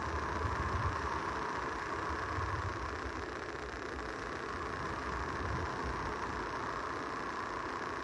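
Small Gulf of Mexico waves breaking and washing up the beach: a steady rushing, with low rumbles swelling and fading every couple of seconds.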